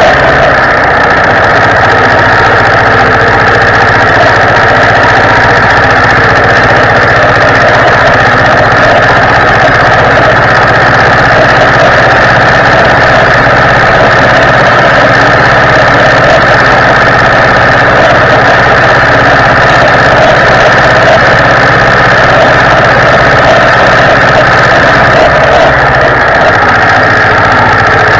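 Zetor 25 tractor's two-cylinder diesel engine running steadily as it drives, loud, heard from right beside its upright exhaust stack.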